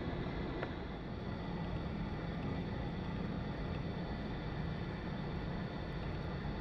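Bombardier CRJ-900 regional jet taxiing past, its twin rear-mounted turbofan engines at taxi idle: a steady low rumble with a faint high whine.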